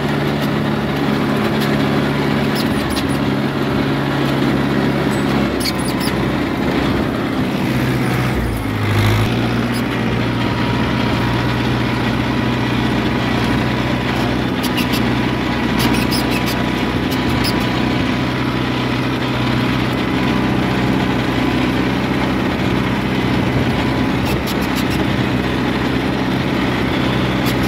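Fiat 640 tractor's four-cylinder diesel engine running steadily under load while pulling a mounted plough through the soil. The engine note shifts briefly about eight seconds in, and a few short metallic clicks come through now and then.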